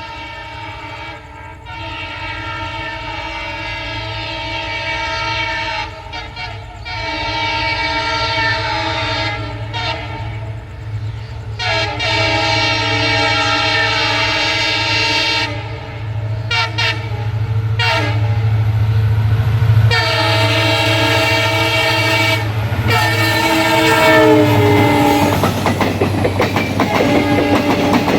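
EMD WDP-4B diesel locomotive honking its horn in a series of long blasts with short breaks, growing louder as it approaches, over the low drone of its engine. About twenty-four seconds in, the horn's pitch drops as the locomotive passes, then the horn stops and the coaches' wheels clatter over the rail joints.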